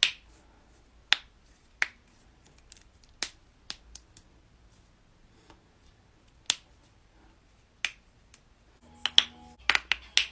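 Joints being cracked: sharp single pops at uneven intervals, a few seconds apart at times, then a quick run of several pops near the end.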